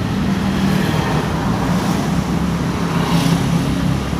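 Road traffic: a steady low engine hum from motor vehicles on the road, with the noise swelling briefly about three seconds in as one passes.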